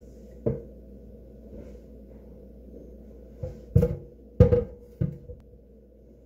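Dishes and kitchenware knocking against a stainless steel sink during hand dish-washing: one knock about half a second in, then a quick run of clatters from about three and a half to five seconds in.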